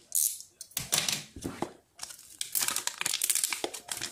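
Paper wrapper crinkling and tearing as hands pull it off a smartphone box, in a string of short rustles and clicks with brief pauses.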